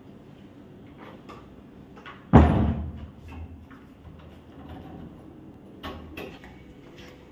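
A wooden front door pulled shut with a bang a little over two seconds in, followed near the end by a couple of lighter clicks at the door as it is secured.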